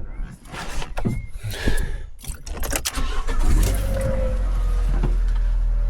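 Fiat 500 engine starting after a few clicks and knocks, then idling steadily from about three and a half seconds in.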